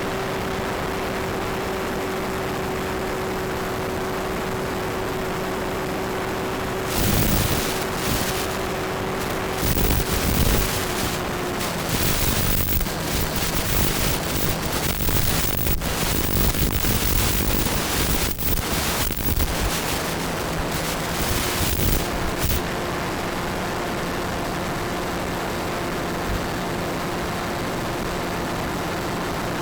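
Bixler RC plane's electric pusher motor humming steadily in flight. From about seven seconds in, around fifteen seconds of loud, irregular crackling noise covers it, and then the steady hum returns.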